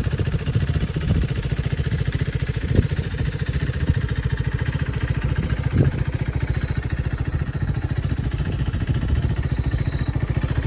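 Motorcycle engine idling steadily, with a fast, even thumping pulse and a couple of faint knocks along the way.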